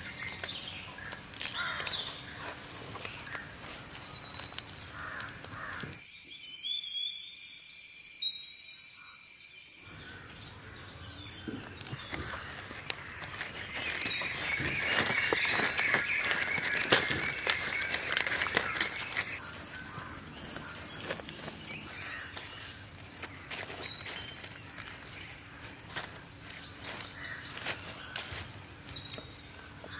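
Forest ambience: a steady high insect trill, like crickets, with occasional short bird chirps. The sound grows louder for a few seconds past the middle.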